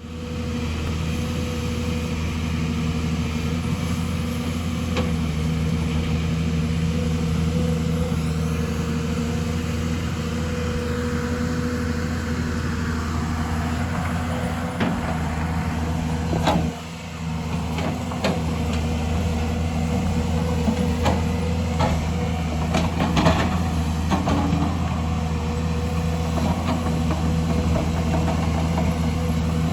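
Excavator's diesel engine running steadily, with scattered knocks and clanks, most of them in the second half, and a brief dip in the engine sound just past the middle.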